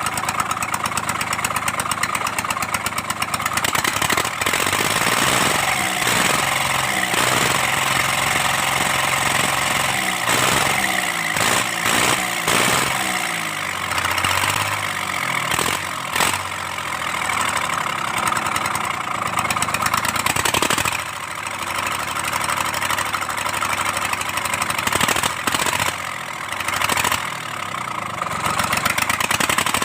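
Kubota D1402 three-cylinder diesel engine running with a dense, even clatter, its speed rising and falling around the middle.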